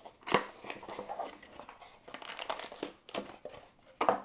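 Packaging being handled: a sharp knock of cardboard shortly after the start, then scattered rustling and crinkling as the box is opened, and a louder crinkle near the end as the plastic-bagged case comes out.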